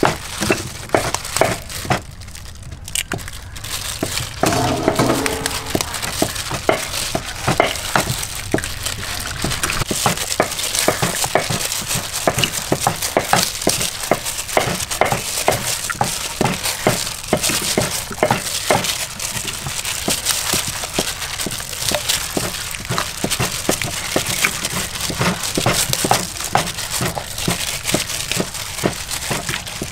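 A hand in a plastic glove squeezing and turning raw chicken pieces coated in flour and beaten egg in a large metal bowl: a continuous, irregular run of wet squishes and crackles, with the plastic glove crinkling.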